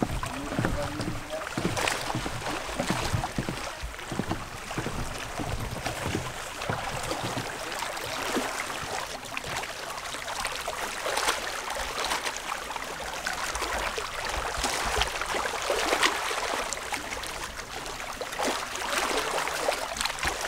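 Small lake waves lapping against a rocky shoreline: a steady wash of water with frequent small splashes.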